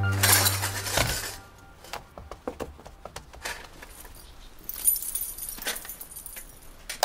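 Silver picture frames clinking and knocking against each other as they are stuffed into a holdall: a run of small, irregular metal clinks. Before that, a loud steady hum stops with a thump about a second in.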